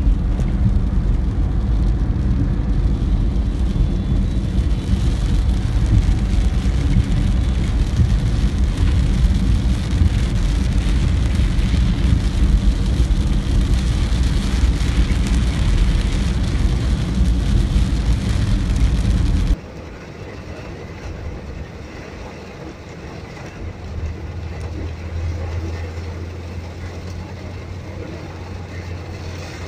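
Road and wind noise inside a moving car: a loud, steady low rumble. About two-thirds of the way through it cuts off suddenly to a much quieter cabin sound, with a low engine hum coming in soon after.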